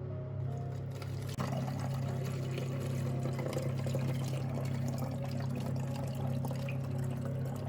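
Water pouring and splashing steadily. It starts about a second in and cuts off at the end.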